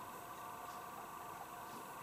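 Bosch Logixx washing machine running during its final rinse: a faint, steady hum with a few light ticks.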